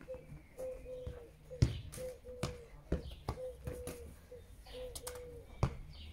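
Football being touched and kicked on a grass lawn: irregular sharp thuds, the loudest about one and a half seconds in and again near the end. A repeated short low hooting tone sounds behind them throughout.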